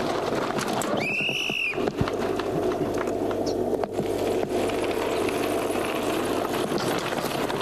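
Steady drone of a running engine with rumbling noise, and a short high tone about a second in.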